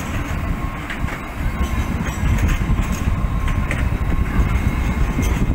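Sydney Light Rail Alstom Citadis tram rolling slowly past close by: a steady low rumble with a few sharp clicks and a faint steady whine in the first half.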